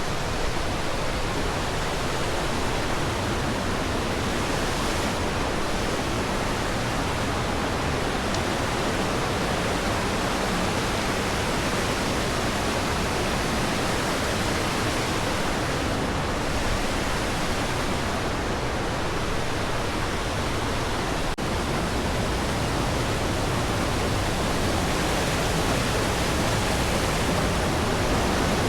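Steady rush of whitewater from North Saint Vrain Creek tumbling over rocks close by.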